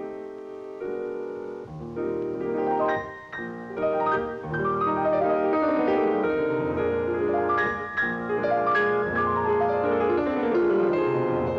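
Piano music: held chords at first, then fast runs of notes from about two seconds in, some sweeping downward.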